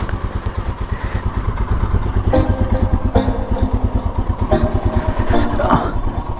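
Motorcycle engine running with an even low throb as the bike pulls away and rides off.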